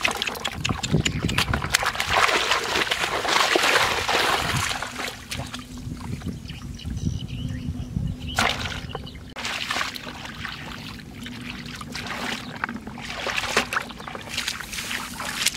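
Hands splashing and sloshing through shallow, muddy paddy-field water while groping for fish, loudest in the first few seconds, then quieter scattered splashes.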